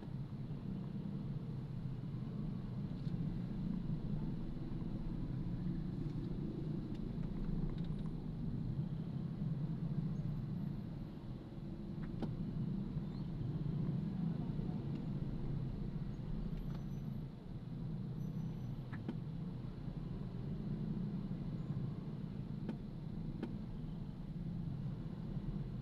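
A car on the move: a steady low rumble of engine and road noise that swells and eases, with a few faint clicks.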